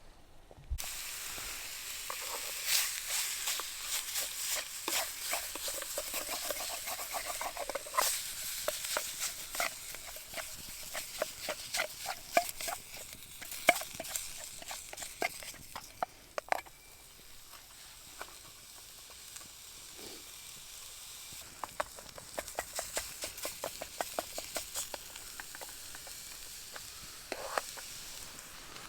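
Food sizzling in a small titanium pan, with a utensil scraping and stirring in quick runs of strokes.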